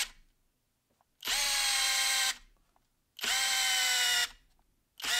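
Hilti SFD 2-A12 12-volt brushless drill driver driving a long Timberlok screw into a log on speed 2. Its motor whine comes in bursts of about a second with short silent pauses: twice in full and once more near the end. The pitch dips as each burst takes up the load, then holds steady.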